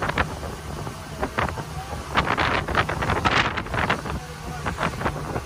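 Wind buffeting the microphone in irregular gusts over a steady low rumble, strongest about two to four seconds in.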